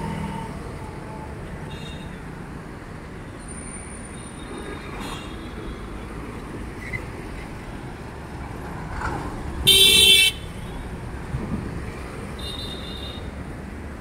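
Steady city street traffic rumble with vehicle horns: a loud horn blast of about half a second roughly ten seconds in, a shorter toot near the end and a few faint toots earlier.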